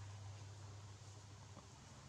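Near silence: room tone with a steady low hum that weakens about a second in.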